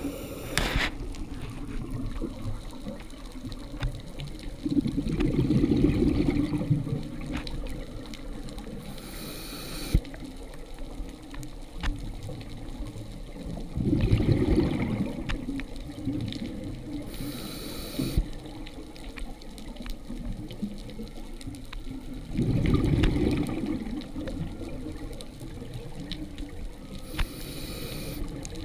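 Scuba regulator breathing underwater: a low bubbling rumble of exhaled air three times, roughly every eight or nine seconds, each followed a few seconds later by a short hiss of inhalation through the demand valve, over a steady underwater hush.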